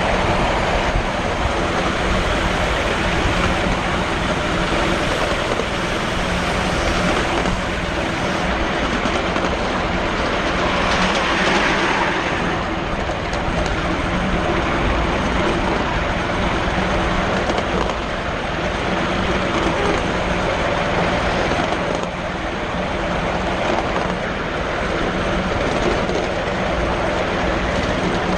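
7¼ inch gauge miniature railway train running along the track, a steady rumble and rattle of its wheels on the rails and its cars.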